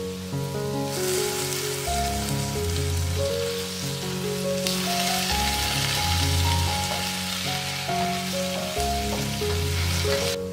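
Sliced potatoes sizzling as they fry in a pan. The sizzle starts about a second in and grows louder about halfway through.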